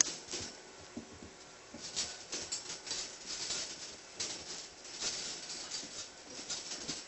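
Puppies' claws scratching and clicking on a perforated floor as they scramble about, in irregular flurries of short scrabbles.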